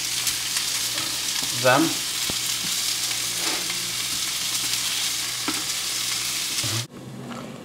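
Ground turkey patties sizzling in an oiled nonstick frying pan while a wooden spatula scrapes and taps in the pan as they are flipped. The sizzle cuts off suddenly near the end.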